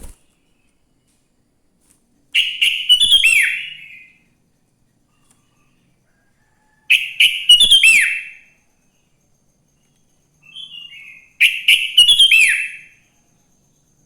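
Sooty-headed bulbul (kutilang) singing: three short, loud, bubbly song phrases, each ending in a downward-swooping whistled note, spaced a few seconds apart, with a softer short call just before the last phrase.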